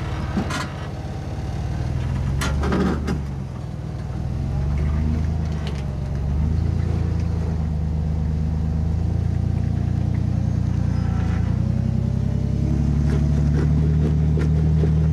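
Jeep JK Wrangler's engine working under load in low gear as it crawls up a vertical rock ledge, revs rising and falling and growing louder toward the end. There are a few sharp knocks in the first three seconds.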